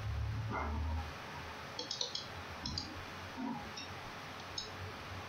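Computer mouse clicks: a few short, sharp ticks in small clusters from about two seconds in, following a low rumble in the first second.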